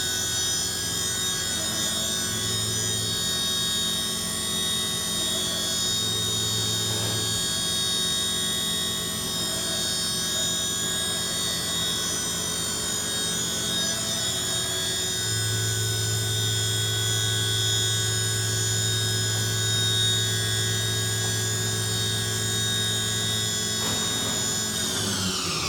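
Spindle of a Hartford Mighty Viper VMC-2100 vertical machining center running a drilling cycle: a steady high-pitched whine with a low hum that comes and goes. Near the end the whine falls away as the spindle winds down.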